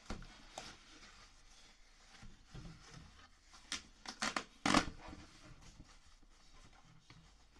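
A parcel being opened by hand: packaging rustling, with a cluster of short, sharp noises as it is pulled open between about three and a half and five seconds in, the loudest near five seconds.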